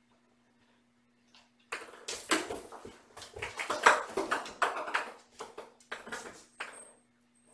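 A soft ball-shaped cat bed being rolled and knocked about on a laminate floor by a kitten scrambling inside it: a busy run of scuffing, rustling and thumps that starts about two seconds in and stops near the end.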